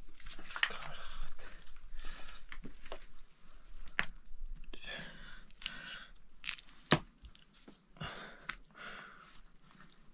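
Hands working wet mud plaster and small stones: wet squelching and scraping as the mud is pressed and smoothed, with scattered sharp clicks and knocks of stone. The loudest knock comes about seven seconds in.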